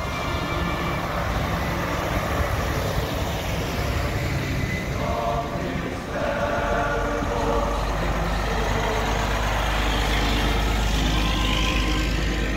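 Heavy dump trucks driving past with diesel engine and tyre noise. A deep engine rumble builds from about six seconds in as a truck comes close, and a truck air horn sounds about five seconds in and again near the end.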